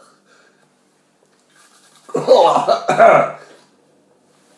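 A man coughing twice, loudly, about two seconds in, from the burn of a super-hot Armageddon chilli he has just eaten.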